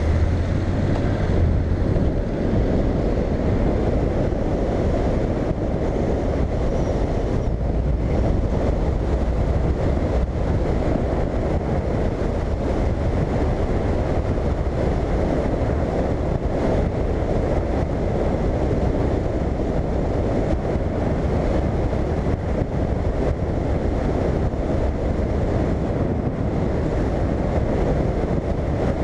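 Steady wind rushing over the helmet-camera microphone at road speed, over the low drone of a Honda Integra's parallel-twin engine and its tyres. The low engine note is stronger for the first couple of seconds as the scooter pulls away.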